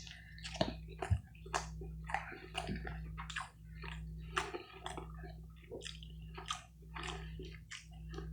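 Close-miked chewing of a soft tortilla wrap with steak, guacamole and sauce: wet, irregular mouth clicks and smacks, over a steady low hum.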